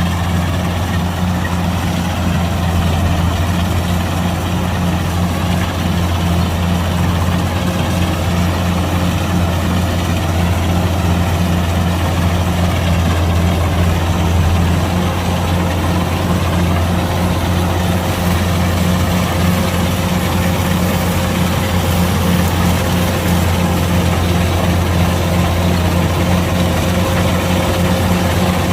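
Kubota DC-105X combine harvester's diesel engine running steadily with a deep, even drone.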